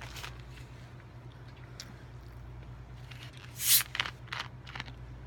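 Short crackling, crunching noises of someone eating a fast-food meal, a few scattered ones with the loudest about three and a half seconds in, over a steady low hum.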